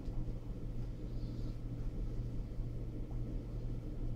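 Steady low background hum, with a brief faint rustle about a second in as the padded cap and fencing mask are adjusted.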